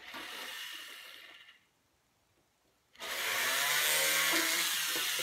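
Jeweller's flex-shaft rotary drill: a short hiss that fades out within the first second and a half, then, after a silent gap, the motor starts about three seconds in with a rising whine and runs steadily.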